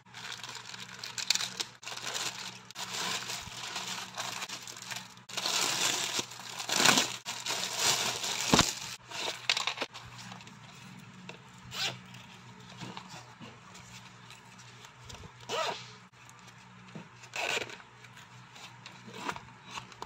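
Plastic packaging crinkling and tearing as a plastic courier mailer and a clear plastic bag are opened by hand. The rustling is loudest in the middle, then thins to a few short crinkles and clicks.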